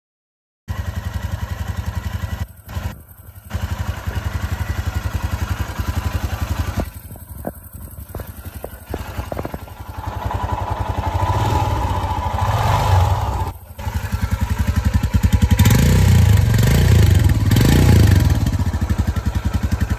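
Royal Enfield Himalayan's 411 cc single-cylinder engine idling with a steady, fast pulsing beat, cutting in about a second in. It is loudest near the end, close to the exhaust silencer.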